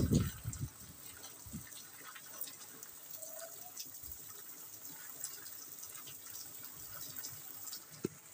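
Rain falling: a steady soft hiss with scattered small ticks of drops. A short low bump of the phone being handled right at the start is the loudest part.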